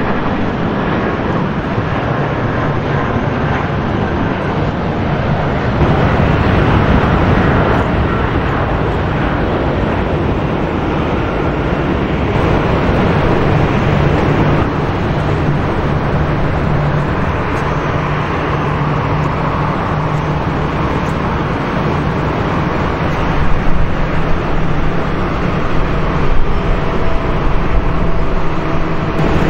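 Boeing 737-500's CFM56 jet engines at taxi idle, a steady rushing noise with a low hum underneath, mixed with airport background noise.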